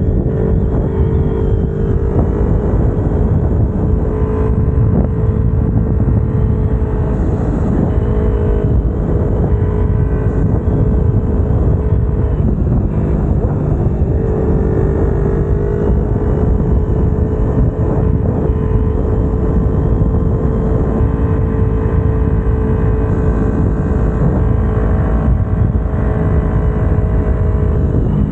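Kawasaki Ninja 250R's parallel-twin engine running at steady cruising revs under heavy wind rush, its pitch dipping briefly and climbing again about halfway through.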